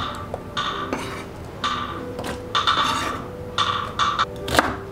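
A chef's knife scraping across a wooden cutting board in several short strokes about a second apart, with a few sharp knocks of blade and wood, as diced onion is swept off the board into a pot.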